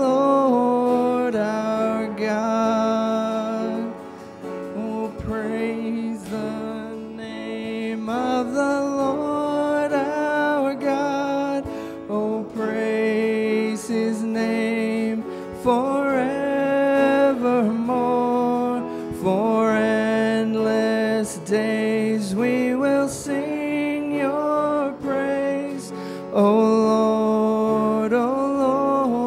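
Slow church worship song: the band plays with held melody lines, the music pausing briefly between phrases.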